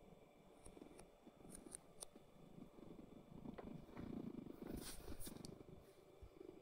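Domestic cat purring faintly while its belly is stroked, with soft rustling of a hand on fur about four to five seconds in.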